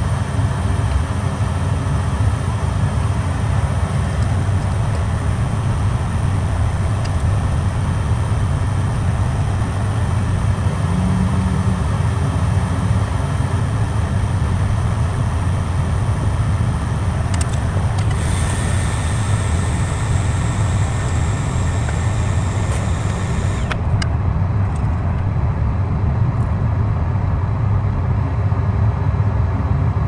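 A steady, machine-like low rumble with hiss runs throughout. About eighteen seconds in, a higher hiss joins it and cuts off suddenly some six seconds later.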